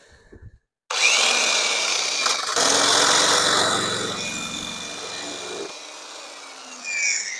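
Grinder with a sanding disc starting up about a second in and grinding off the protruding bottom of a thread insert in a 1925 Ford Model T front axle. It gets quieter over the last few seconds, with a brief whine near the end.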